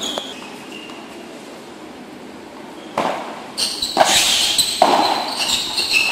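Padel ball struck by paddles and bouncing during a rally: one knock at the start, then from about three seconds in a quick run of sharp knocks with short high squeaks.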